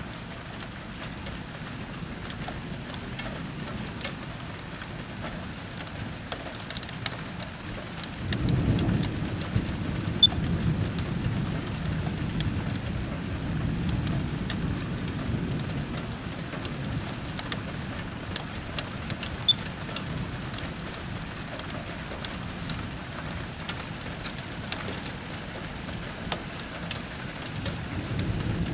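Steady rain with scattered sharp drop ticks. About eight seconds in, a long low thunder rumble rolls in and slowly fades over the next ten seconds or so, and another rumble begins near the end.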